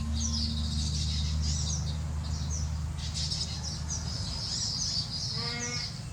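Many small birds chirping busily in high, quick overlapping calls. A loud low steady drone lies beneath and stops about four seconds in, and one short, lower call sounds near the end.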